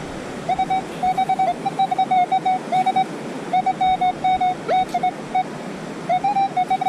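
Metal detector sounding its target tone: a steady-pitched beep chopped into quick repeated pulses, in three runs with short breaks, as it passes over a target the detectorist reads as a quarter. Surf and wind noise underneath.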